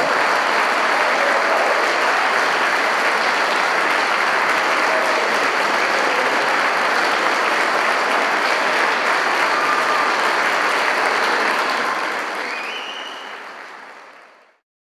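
A church congregation applauding, a steady wash of many hands clapping that fades away near the end.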